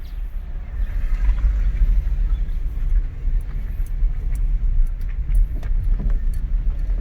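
Steady, fluttering low rumble with a few small clicks and rattles in its second half.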